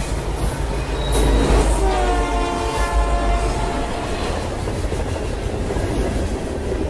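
Canadian National diesel freight locomotive passing with a heavy low rumble. Its air horn sounds one long blast about two seconds in, lasting about two seconds.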